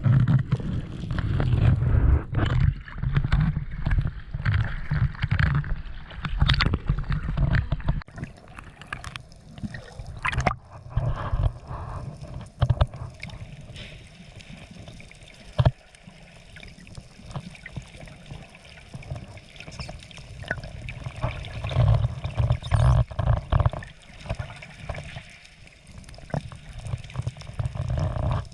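Sea water sloshing and gurgling against an action camera, with an uneven low rumble of water movement on the microphone and scattered small knocks.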